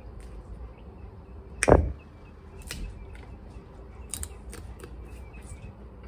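Cooked blue crab shells being cracked and picked apart by hand: one loud, sharp crack a little under two seconds in, then a scatter of smaller snaps and clicks.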